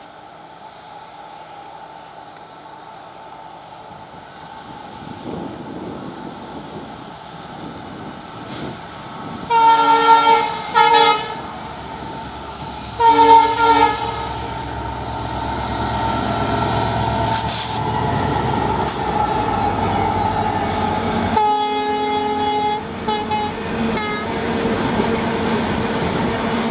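Twin WDG-4 diesel-electric locomotives with EMD two-stroke engines approaching and passing at the head of a loaded coal freight, their rumble growing louder as they near. The horn sounds a long and a short blast about ten seconds in, another blast a few seconds later, and a further blast with short toots near the end as the loaded wagons roll past.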